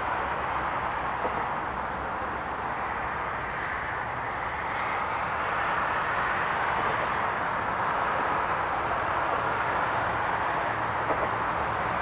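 Steady, even roar of distant city traffic, with no bird calls standing out above it.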